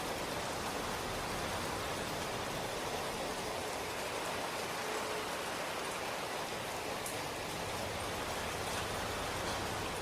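Steady rainfall: a dense, even hiss of rain with faint individual drops ticking now and then.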